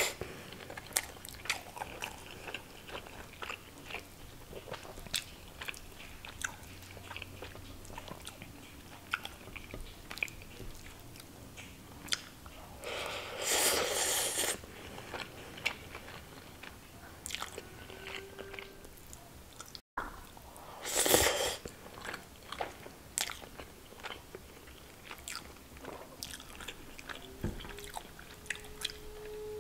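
Close-miked mouth sounds of someone chewing and crunching crisp food, with many small sharp crunches and two longer, louder crunching spells about halfway through and about two-thirds of the way in.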